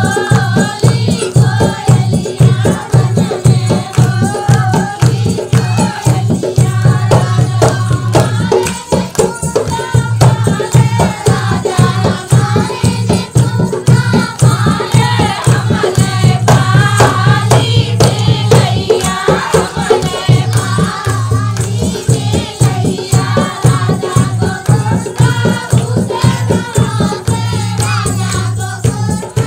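North Indian rural folk dance song (dehati nach geet): a voice singing over a fast, steady drum beat.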